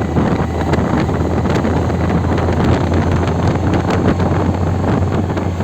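Wind rushing and buffeting the microphone over a steady low rumble of a moving vehicle, with a rough crackle throughout.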